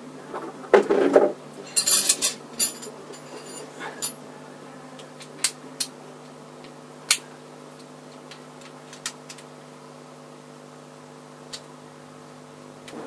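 Metal tools and parts clanking and clinking on a workbench: a clunk about a second in, a quick clatter at about two seconds, then a few scattered sharp ticks.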